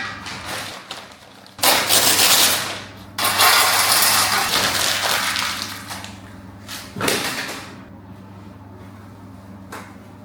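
Packaging and loose parts being handled: a sharp clack, then two long bursts of rustling and clattering and a shorter one about seven seconds in, over a steady low hum.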